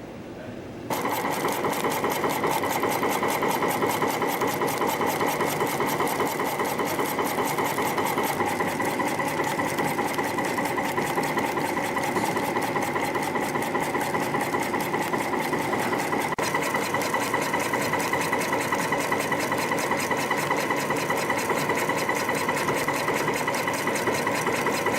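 A CNC spring coiling machine starts up about a second in and runs at a fast, even clatter while coiling cylinder springs from 0.2 mm wire at about 300 a minute.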